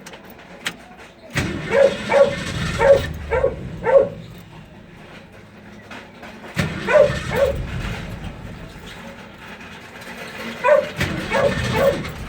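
Ford Mustang engine cranking on the starter in three bouts without catching, a crank-but-no-start fault. A dog barks repeatedly over each bout.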